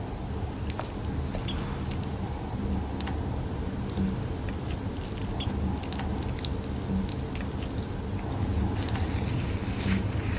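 Makeup products being handled close to the microphone: scattered small clicks, taps and scratches of cases and applicators over a steady low hum.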